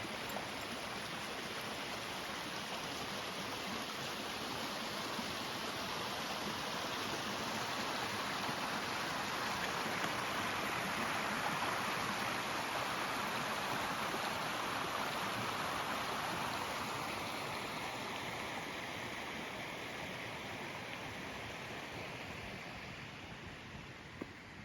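Running water of a stream or creek, a steady rush that swells toward the middle and fades away near the end.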